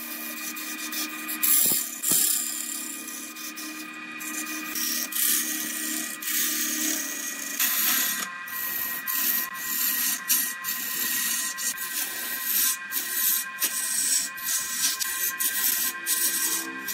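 Turning chisel cutting a spinning jackfruit-wood blank on a lathe: a continuous scraping hiss as shavings peel off, broken by frequent sharp scratchy bites, over a steady high whine.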